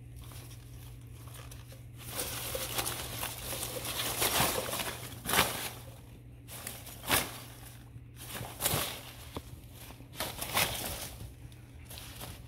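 Styrofoam packing peanuts and plastic ball-pit balls rustling and shifting in irregular bursts as a small pet burrows through them, with a few sharper bursts, over a steady low hum.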